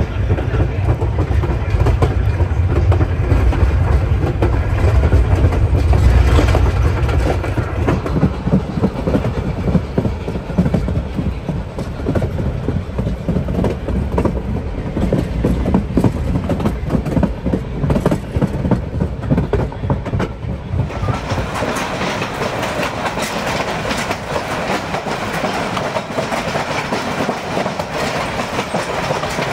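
Narrow-gauge steam train running, wheels clacking over the rail joints, with a heavy low rumble for the first several seconds. About two-thirds of the way through, the sound shifts abruptly to a lighter, hissier clatter.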